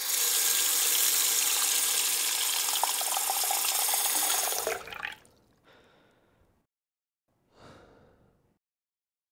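Kitchen sink tap running in a steady rush of water, shut off abruptly about five seconds in.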